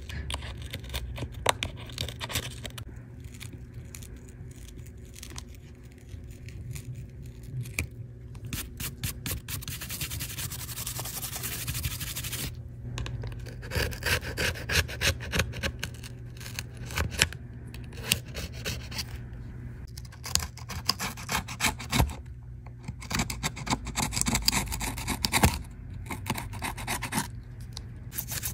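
Metal scraping tool scraping shattered glass and adhesive out of an iPad's aluminium frame edge, in quick repeated scraping strokes with small gritty clicks.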